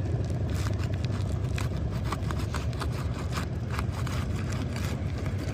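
Asphalt roof shingles being pried loose with a tool to break their sealant-strip bond: a run of short, irregular scrapes and crackles over a steady low rumble.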